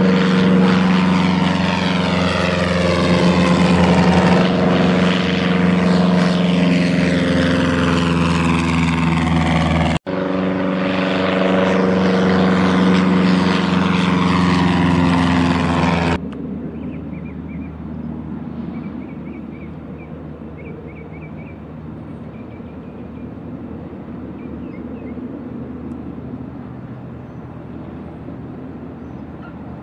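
1946 Aeronca 7DC Champion's four-cylinder Continental C-85 engine and propeller running loud at full power through the takeoff run and a close pass, the pitch sliding as the plane goes by. After a sudden cut about sixteen seconds in, the engine is heard fainter and duller from afar as the plane comes in to land.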